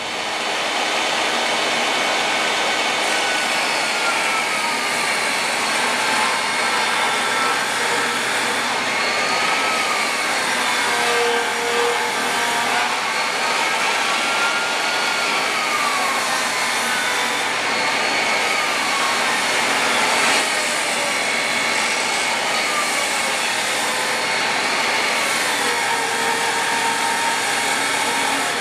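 Jobsite table saw ripping the edge of a thick southern yellow pine board held on a jointing sled. The blade and motor run steadily and loudly, with a whine that dips and recovers in pitch as the blade loads up in the cut.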